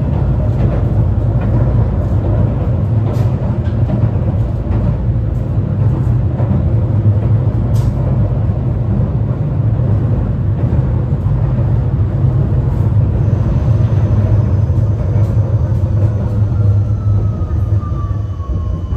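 Inside a 71-931M Vityaz-M low-floor tram running on the track: a steady low rumble of wheels and running gear, with a few faint clicks. In the last few seconds a thin whine falls in pitch and the rumble eases as the tram slows.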